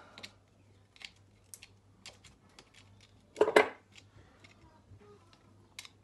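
Scattered small clicks and taps of hand tools and cable sleeving being handled at the wire ends of a light fitting, with one louder, longer handling sound about three and a half seconds in.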